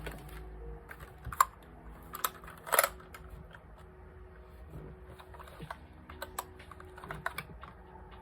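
Keys of an RGB computer keyboard clicking irregularly as it is typed on, a few strokes louder than the rest, over background music.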